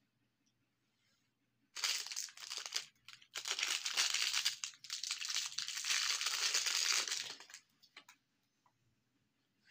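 Hard lollipop candy crackling and crunching as it is crushed in a meat grinder, in two spells: a short one about two seconds in and a longer one lasting about four seconds.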